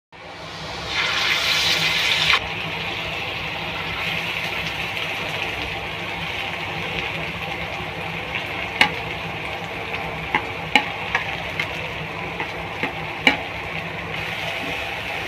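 Stovetop cooking: a short gush of water, then a steady hiss with scattered sharp pops and clicks.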